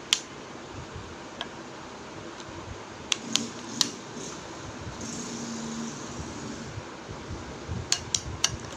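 Spoon clinking and scraping against a glass bowl while stirring a freshly thickened alginate mask paste: a few sharp clinks at the start, around the middle and near the end, with a steady low hiss between them.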